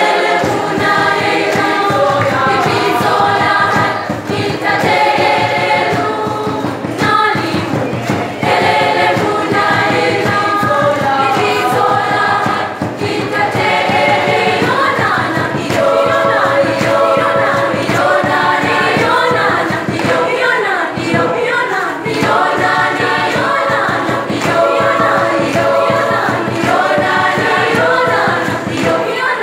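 School choir of young voices singing a cappella, with short breaks between phrases.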